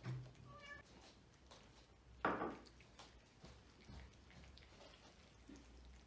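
A domestic cat meows about two seconds in, with a shorter, fainter pitched call just before it, over soft clicks of cats eating from plates.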